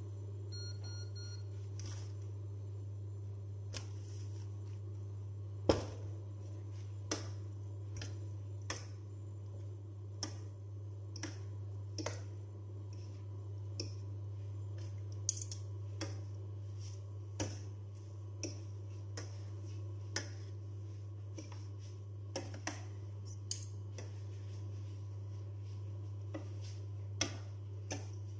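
Steady low hum of an induction cooktop heating oil in a nonstick frying pan, with scattered sharp clicks and ticks every second or two.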